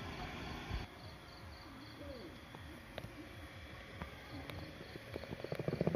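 Crickets chirping faintly in a steady high pulse, about three chirps a second. Near the end, a quick run of rustling clicks rises over them.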